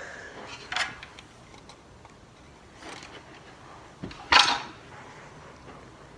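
Hard objects being handled: a few short clinks and knocks, the loudest a little after four seconds in.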